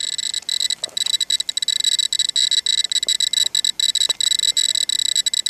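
Ecotest Terra-P dosimeter beeping in a fast, irregular stream of short high chirps, one for each particle it detects. The rapid rate is the sign of elevated radiation from the radioactive stone it is held against, which reads about seven microsieverts per hour.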